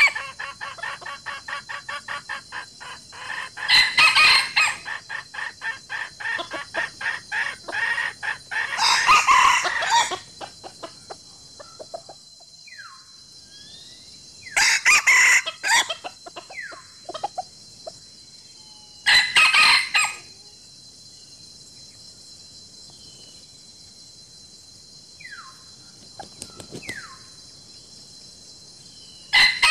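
Free-range chickens calling: a fast run of clucks for the first ten seconds, and five loud calls of about a second each, spaced several seconds apart. Faint chirps of small birds come in the quieter stretch between them.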